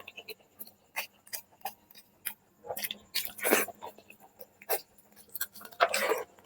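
Close-miked mouth sounds of a person eating chicken curry and rice: irregular wet clicks and smacks of chewing, with two longer, louder noisy sounds about three and a half and six seconds in.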